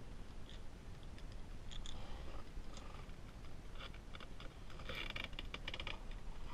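Light, scattered clicks and rattles of small hard objects being handled, busiest about five seconds in.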